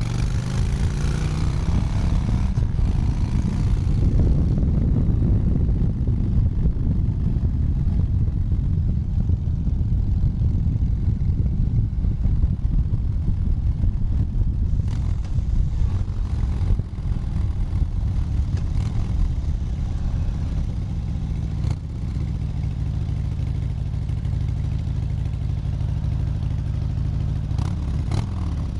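Harley-Davidson V-twin motorcycle engine running, its revs climbing in the first couple of seconds into a dense, heavy low rumble. About two-thirds of the way through it settles to a steadier, even note, and the revs change again near the end.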